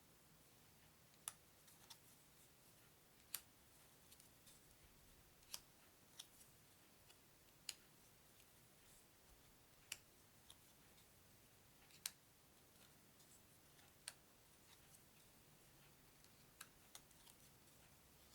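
Playing cards being handled and laid down one at a time, a sharp card click about every two seconds with softer ticks of card edges in between.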